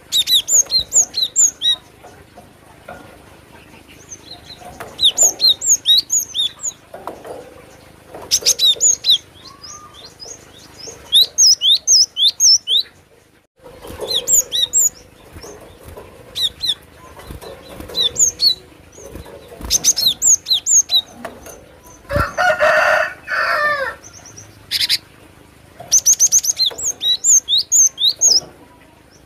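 Cinereous tit (gelatik batu) singing: rapid runs of sharp, high notes in bursts of about a second, repeated after short pauses. Near the 22-second mark a lower, louder call with several pitches breaks in for about two seconds.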